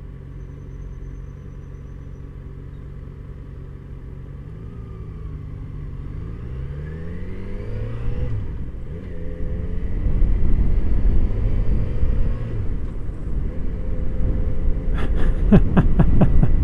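Motorcycle engine idling, then pulling away and accelerating, its pitch rising through the gears from about four seconds in. The sound grows louder as speed builds, with wind and road noise.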